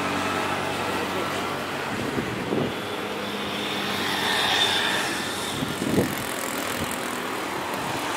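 Jet airliner engine noise: a steady noise with a high whine that swells to its loudest about halfway through, then fades.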